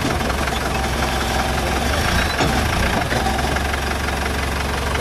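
Off-road competition 4x4's engine idling steadily while the truck sits stalled against a tree trunk on a steep slope.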